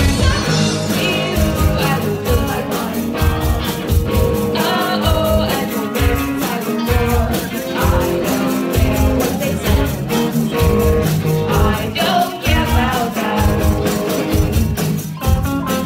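Rock band playing live: electric guitar, electric bass guitar and a drum kit keeping a steady, driving beat.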